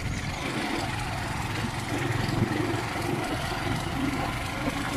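Motorcycle engine running steadily while the bike rides slowly over a rough dirt trail, heard from on the bike.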